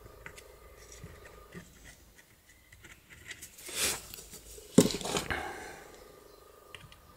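Handling of a garage lock mechanism during reassembly and oiling: faint light clicks, a short hiss about four seconds in, then a sharp metal knock a second later, the loudest sound, with a brief rattle after it.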